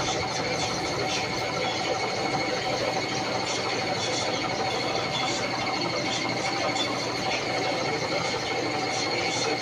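Electric coconut grater running with a steady motor hum and high whine, while grated coconut is bagged by hand, adding light plastic rustles and ticks.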